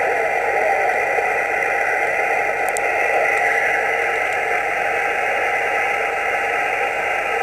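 Yaesu HF transceiver's speaker giving a steady hiss of open-band noise on 20 metres, held to the narrow voice passband of a single-sideband receiver, with no station transmitting.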